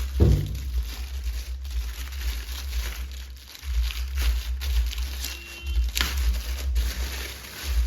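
Plastic packaging crinkling and packing tape being torn off a wrapped soundbar, with a sharper tear about six seconds in, over a low steady hum.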